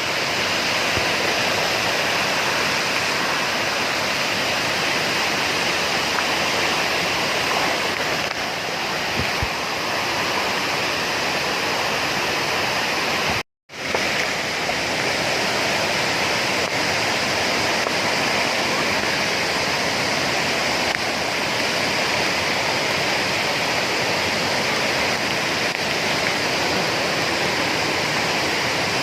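Steady, even rush of falling water from a waterfall, cutting out completely for a moment about halfway through.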